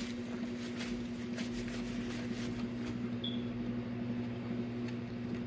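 Faint wet clicks of someone chewing food, dying away about halfway through, over a steady low electrical hum.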